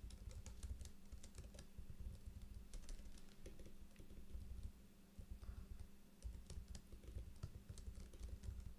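Typing on a laptop keyboard: irregular runs of soft key clicks with short pauses, over a faint steady hum.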